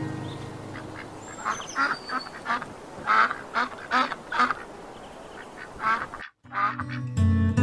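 Mallard ducks quacking: a run of about a dozen short quacks with brief gaps between them, over the soft wash of the water. Acoustic guitar music fades out at the start and comes back in near the end.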